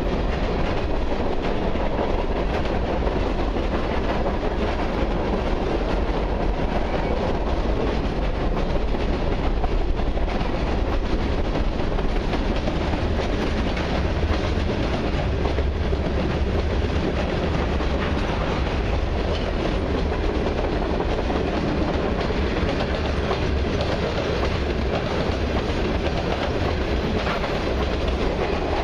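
Freight cars of a long mixed freight train, boxcars, covered hoppers and tank cars, rolling past close by: steady wheel-on-rail noise with a low rumble that keeps up without a break.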